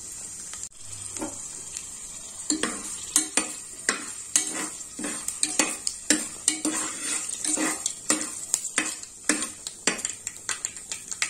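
Tempering seeds and dried red chillies sizzling in hot ghee and oil in a pressure cooker, with a steady hiss. From about two and a half seconds in, a ladle scrapes and knocks against the pot many times as the seeds are stirred.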